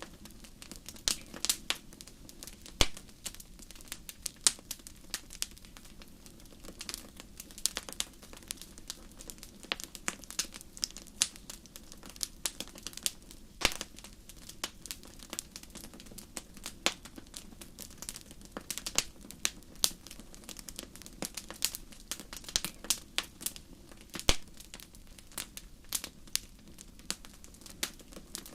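Wood fire burning in a fireplace grate: a constant soft hiss with irregular sharp crackles and occasional louder pops.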